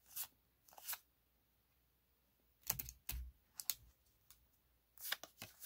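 Magic: The Gathering trading cards being flipped through by hand, the stiff cards sliding and snapping against each other in a few separate clusters of short clicks.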